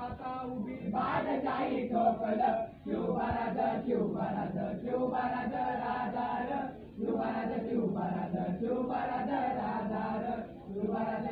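A group of boys singing a Marathi song together in long held phrases, with brief breaks for breath every few seconds.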